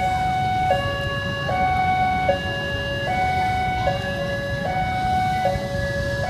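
Railway level-crossing warning siren sounding a two-tone alternating wail, switching between a higher and a lower note about every 0.8 seconds, over a steady low rumble.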